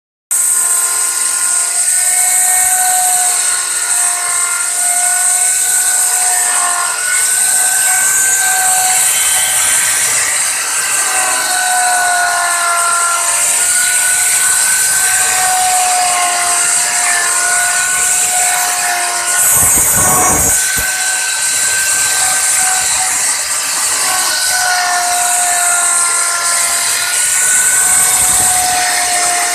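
CNC router spindle running at high speed while its bit carves wood, a steady whine whose pitch wavers slightly with the cutting load over a hiss of cutting. A short bump is heard about two-thirds of the way through.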